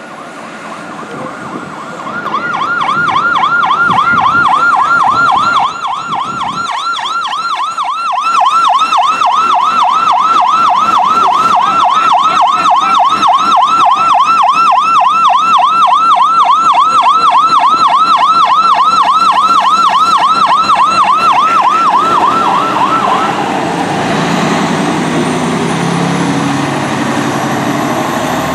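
Emergency vehicle siren on a fast yelp, a rapid up-and-down wail several times a second, that starts about two seconds in and cuts off near the end. The vehicle's engine rumble follows as it moves off.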